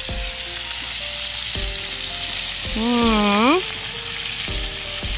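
Potatoes and pork frying in oil in a harrow-disc pan over a campfire, a steady sizzle. A short pitched vocal sound, like a hummed note, comes about three seconds in.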